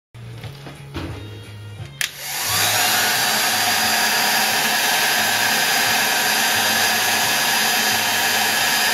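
A hot-air blower clicks on about two seconds in and then runs steadily with a loud, even rush of air. It is heating a freshly beeswax-dipped restuffed capacitor so that the wax coating melts.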